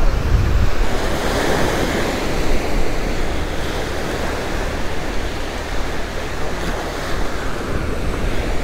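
Gulf surf breaking and washing up the beach, a steady rushing wash, with wind buffeting the microphone.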